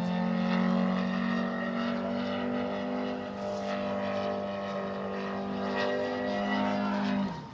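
The radial engine of an RC model GeeBee R2 runs steadily in flight, its note wavering slightly as the plane manoeuvres, then stops abruptly near the end.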